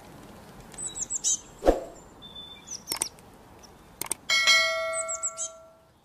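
Short high bird chirps over a faint hiss, with sharp clicks about a second and a half, three and four seconds in, then a bell-like chime ringing for about a second and a half near the end: the click-and-ding sound effect of a subscribe-button animation.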